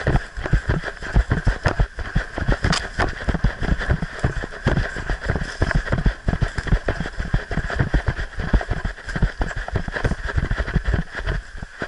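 Hurried footsteps of a hunter on a leaf-littered forest trail, a quick irregular run of thuds and crunches with clothing and gear knocking against the body-worn camera. A steady high drone continues underneath.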